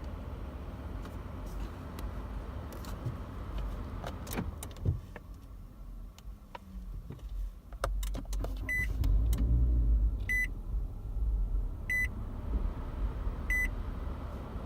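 Car dashboard chime in a Nissan Altima sounding four short beeps, evenly spaced about a second and a half apart, in the second half. Before the beeps come several clicks, and a low rumble grows louder about halfway through.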